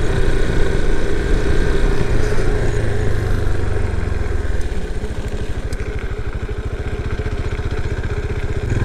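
Yamaha Serow 250's air-cooled single-cylinder engine running at low speed. About halfway through it drops a little and settles into an even beat of separate firing pulses, as at low revs.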